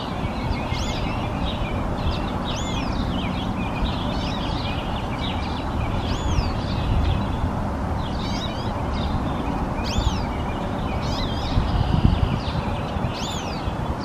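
A goldfinch singing: a run of high, quick chirps and twittering notes, many of them arching up and down in pitch and repeated every second or two, over a steady low background noise.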